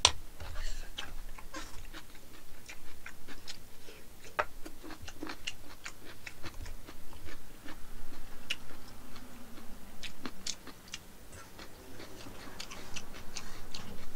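Close-up eating sounds from someone eating black-bean noodles (jjajangmyeon): chewing and wet mouth clicks and smacks, with sharp clicks of a spoon and chopsticks against the bowls. The clicks come irregularly throughout, the sharpest right at the start.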